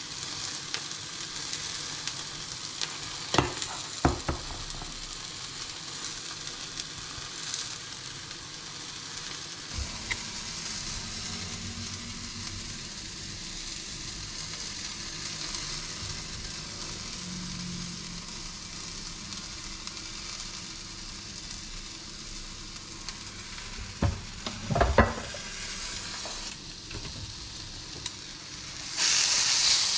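Tomato slices sizzling steadily in hot oil in a frying pan, with a few sharp clicks of kitchen utensils about three to four seconds in and again near twenty-five seconds. Near the end the sizzle briefly flares louder.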